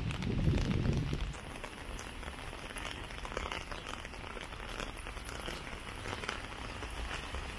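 Rain falling on a wet street, an even hiss with many small drop ticks. A low rumble runs through the first second or so.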